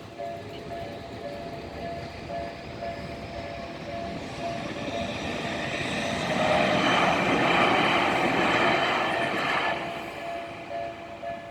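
Japanese level-crossing warning bell ringing in a steady repeating ding-ding while a Tokyu Ikegami Line train rumbles through the crossing. The train's noise builds from about four seconds in, is loudest midway and drowns the bell, then fades near the end as the bell carries on.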